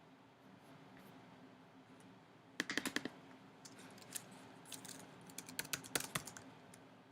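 Typing on a computer keyboard: a quick run of keystrokes about two and a half seconds in, then scattered keystrokes.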